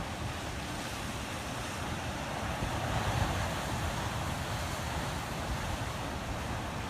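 Steady rushing outdoor nature ambience, swelling briefly about three seconds in.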